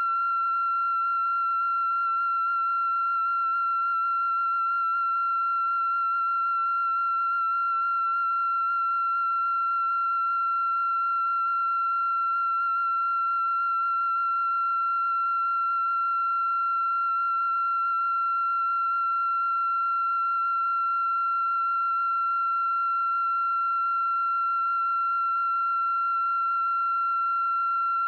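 A steady, unbroken high-pitched electronic tone with fainter overtones, not changing in pitch or loudness.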